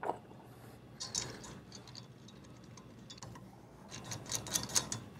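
Light metallic ticks and clicks from a wrench and hex nuts on the studs of a split-body ball valve as the body nuts are tightened. There are a few single clicks in the first second or so, then a quick run of them about four seconds in.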